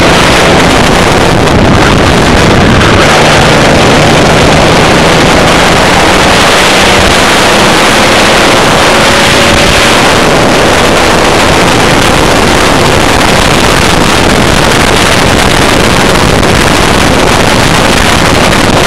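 Racing kart's engine heard from an onboard camera at speed, largely buried under loud wind noise on the microphone; the engine note climbs slowly in the middle as the kart accelerates.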